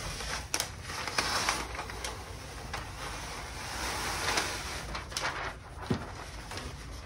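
Rustling and crinkling of a large wall sticker sheet being handled and pressed on, with a few light knocks and taps in between.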